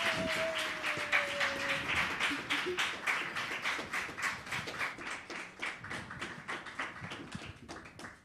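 Audience applauding, many quick claps that thin out and fade away near the end. A long falling tone sounds over the clapping in the first couple of seconds.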